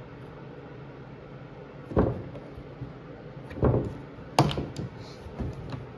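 Knocks and clicks of the Yakattack short stack's lid and latches being worked: three sharp knocks about two, three and a half, and four and a half seconds in, followed by a few lighter clicks.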